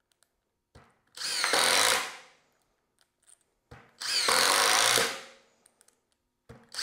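Cordless drill driving a screw into a wood block in short trigger pulls: two runs of about a second each, the motor pitch rising as it spins up, then a third run starting near the end. The bit is held straight in the screw head, so it drives without slipping.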